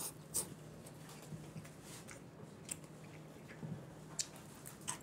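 A person eating Chapagetti black-bean instant noodles with chopsticks: faint slurping and chewing, with a few short clicks.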